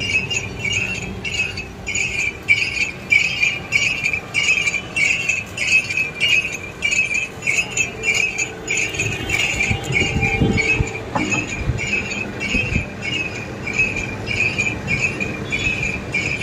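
Sugarcane juice crusher running, its bells jingling in an even rhythm of about three a second over the hum of the machine.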